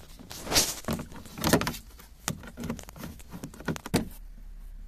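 A Peugeot iOn's plastic interior trim cover being handled and pressed back into place: a run of clicks and knocks, with two louder scraping rustles about half a second and a second and a half in.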